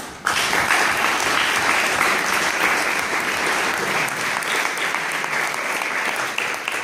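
An audience applauding, starting suddenly and holding steady.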